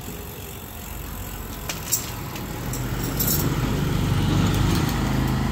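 A motor vehicle's engine running and growing louder, as if passing close by, with a few light metallic clicks over it.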